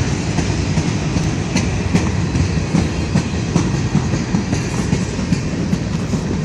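Freight train rolling past: a steady heavy rumble of the cars with sharp irregular clacks of steel wheels over the rail joints.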